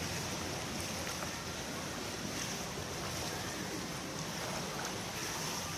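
Steady splashing and churning of pool water as a swimmer sculls face-down along the lane.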